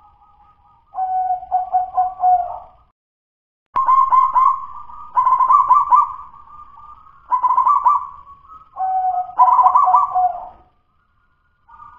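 Local zebra dove (perkutut) cooing: four or five phrases, each a rapid run of pulsed notes, with short pauses between them. Its song is still 'dudut-nutut', a broken delivery that is not yet fluent ('los') or steady.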